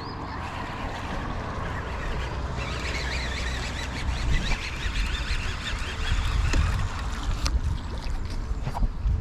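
Open-water noise on a bass fishing boat: wind rumbling on the microphone and a hiss of moving water that grows louder a few seconds in. A few sharp clicks come in the second half.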